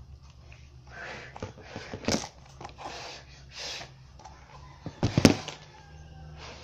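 Cardboard packaging box being handled close to the microphone: a few soft rustles, a sharp knock about two seconds in and a louder knock about five seconds in.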